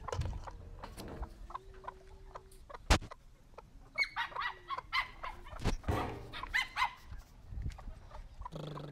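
Chickens clucking in short, repeated calls, one of them drawn out and held. A single sharp knock comes about three seconds in, and a lower, drawn-out animal call starts just before the end.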